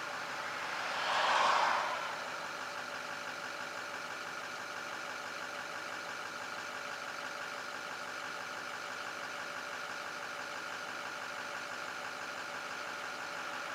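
Steady idling engine hum at a fixed pitch, with a car driving past on the road, loudest about a second and a half in.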